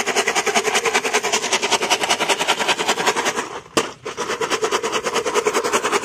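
Auto-rickshaw's small engine idling with a rapid, even chugging, breaking briefly a little after three and a half seconds in.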